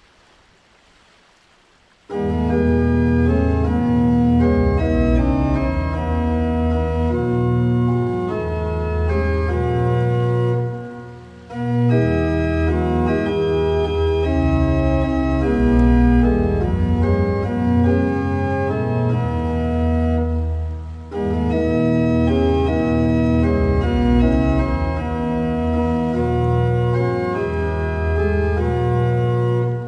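Organ playing a hymn tune in full sustained chords with a bass line. It comes in about two seconds in after a quiet start and pauses briefly between phrases about 11 and 21 seconds in.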